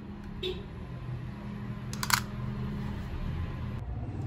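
Sharp plastic clicks from a handheld correction tape dispenser: a small click about half a second in and a louder double click about two seconds in, over a steady low hum.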